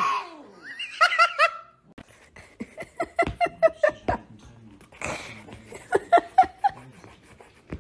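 A person laughing in several bursts, each a quick run of short pulses, the longest a little past two seconds in.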